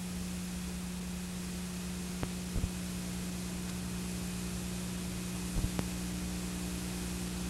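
Background noise from an old videotape transfer: a steady hiss with a low electrical hum beneath it, and a few faint clicks.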